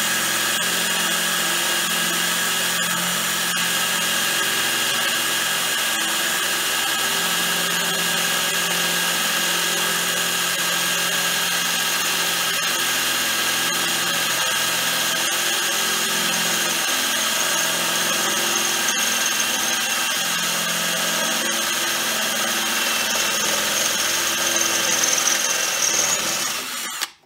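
Handheld power drill with a 5/16-inch bit running steadily as it bores through a thin generator frame panel. The motor whine cuts off suddenly just before the end.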